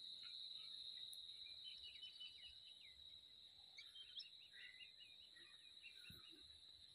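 Faint countryside ambience: a steady high-pitched insect trill, with runs of short bird chirps.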